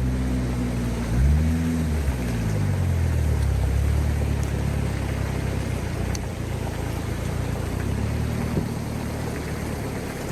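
A vehicle engine running, its pitch rising and falling briefly about a second in, then running steadily over a constant hiss.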